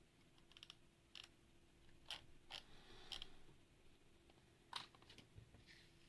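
Mechanical keyboard keys pressed a few times at irregular intervals: about six faint, sharp clicks over a low steady hum.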